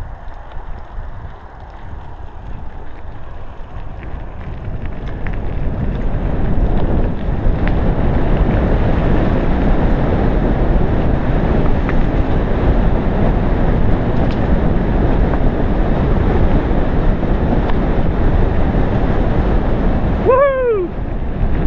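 Wind buffeting the action camera's microphone and mountain-bike tyres rumbling over a dirt trail, building over the first several seconds as the bike gathers speed, then holding steady. Near the end a brief tone slides down in pitch.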